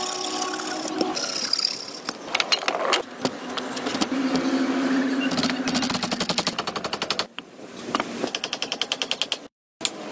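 Woodworking on wooden logs: a string of knocks and scrapes, then a fast rattle of about ten clicks a second lasting just over a second, about two-thirds of the way in.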